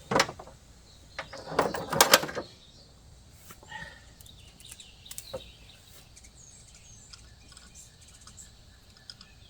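Several sharp clicks and knocks of equipment being handled in the first two seconds, then faint bird chirps in the background.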